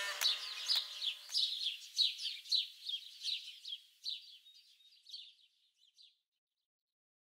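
The music's last notes die away in the first second or so. Quick downward-sweeping bird chirps follow, a few each second, and fade out about six seconds in.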